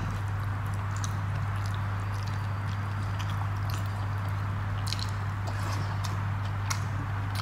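Chewing and mouth sounds from a person eating rice and fish curry by hand, with scattered small wet clicks and the squish of fingers mixing rice on the plate. A steady low hum runs underneath.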